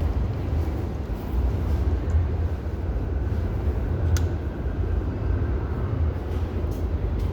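Steady low rumble of a subway train in an underground station, with one sharp click about four seconds in.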